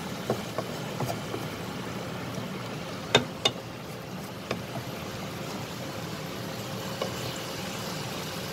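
Mushrooms, capsicum and onion in masala with a little water, sizzling steadily in a non-stick kadai while a wooden spatula stirs them. The spatula knocks on the pan a few times, loudest twice about three seconds in.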